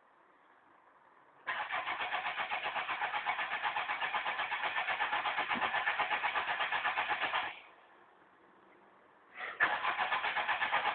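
Fiat Uno's starter motor cranking the engine in fast, even pulses for about six seconds without it catching, then a pause and a second cranking attempt near the end. This is a failed start on an engine the owner takes to be flooded from pumping the pedal.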